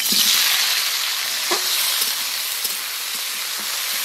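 Sliced onion and tomato hitting hot oil in a metal kadai and sizzling hard, loudest right away and easing slightly as the pieces settle in the oil.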